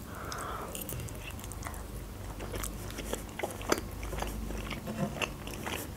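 Close-miked chewing of a mouthful of fried egg: an irregular run of small mouth clicks and smacks.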